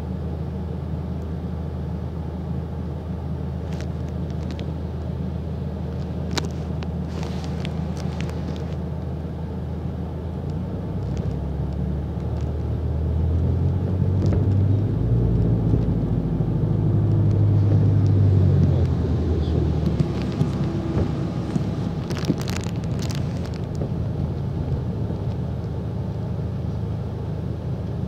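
Diesel bus engine heard from inside the passenger saloon, running steadily while the bus waits, then getting louder as the bus pulls away and accelerates before settling back. A few light clicks and rattles come through from the cabin.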